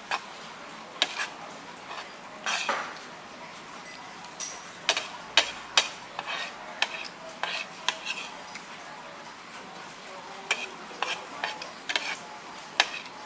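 Cutlery clinking and scraping against dishes in irregular sharp taps.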